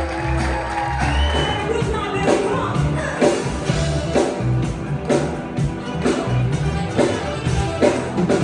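Pop-rock song with a singing voice over a steady drum beat and bass.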